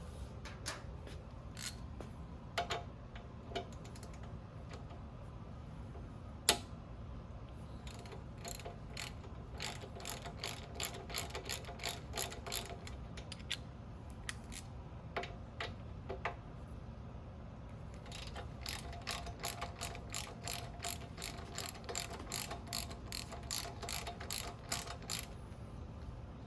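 Hand ratchet with an Allen bit clicking as Allen bolts on the motorcycle's front end are loosened: scattered clicks at first, then two long runs of rapid even clicks, about four a second. A single sharp knock about six seconds in.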